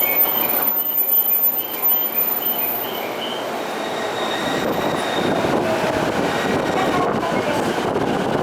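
Busy station platform beside a stopped commuter train packed with passengers, a steady hubbub of crowd and train noise. About a second in, a quick series of roughly seven short, high electronic beeps sounds over the hubbub and stops about three seconds in.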